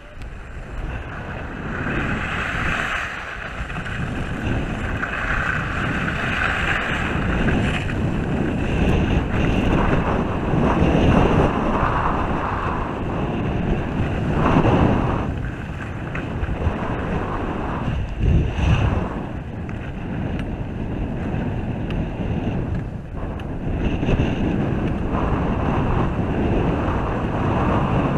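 Wind rushing over an action camera's microphone during a downhill ski run, mixed with the hiss and scrape of skis on packed snow, rising and falling from turn to turn.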